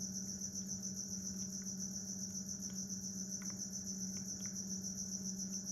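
Crickets chirping in a continuous high, rapidly pulsing trill, with a low steady hum underneath.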